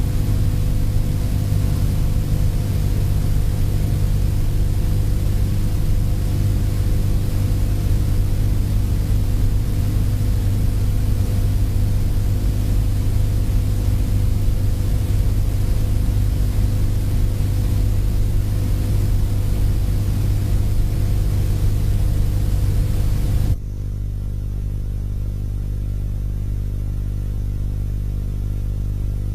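Steady low electrical hum with hiss, a recording's background noise with no speech or music. About three-quarters of the way through, the hiss cuts off suddenly, leaving a quieter low hum.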